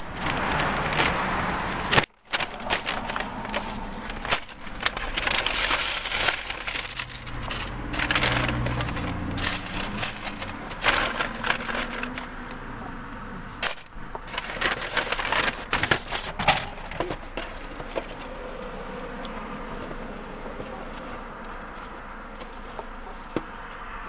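Rustling and clicking of a paper takeout bag and food containers being carried and handled. The sound cuts out briefly about two seconds in.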